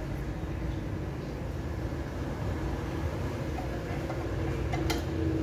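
A steady low background rumble with a faint hum, and near the end a few sharp metallic clicks of a spanner working the injector fitting of a single-cylinder diesel engine.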